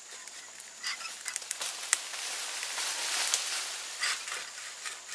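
A tree falling after being cut: a run of sharp cracks and snaps, swelling into a rush of breaking branches and leaves about two seconds in, as it comes down against a neighbouring tree, then dying away.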